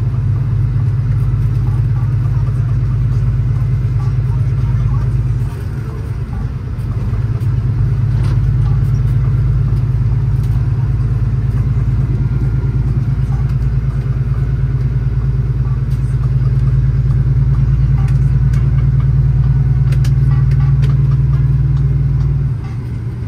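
Cummins ISX diesel engine of an International Prostar truck running steadily with a deep drone. It eases off briefly twice, about five seconds in and near the end.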